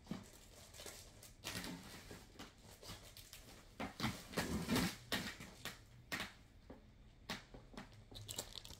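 Scattered faint bumps, clicks and rustles of things being handled and moved about, with the loudest stretch about four seconds in.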